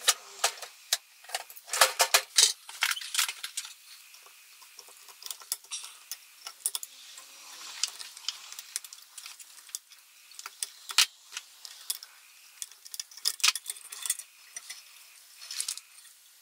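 Irregular small metallic clicks, clinks and taps from hand tools and the parts of an oil rain lamp's metal base being handled and worked loose, with a few sharper knocks along the way.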